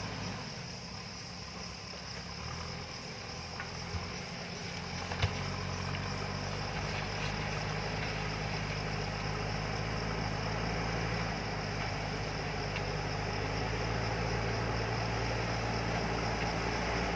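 JCB backhoe loader's diesel engine running steadily, with two sharp knocks about four and five seconds in; the engine grows a little louder after that.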